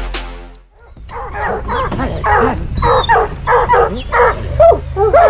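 Bear hounds barking and bawling excitedly: many short, pitch-bending calls overlapping, several a second. They start about a second in, as drum-heavy music fades out.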